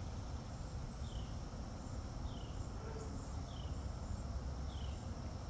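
A short high chirp that falls in pitch, repeated about once every second, over a steady low outdoor rumble.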